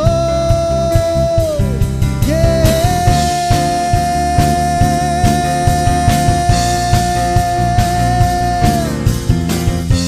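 Live worship-band music: a singer holds one long note for about six seconds, ending near the end, over drums, electric bass and guitar keeping a steady beat.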